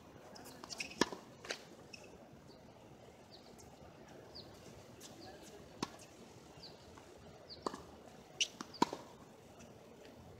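Tennis ball rallied on a hard court: sharp pocks of racket strikes and ball bounces every second or two, the loudest about a second in and a pair near the end.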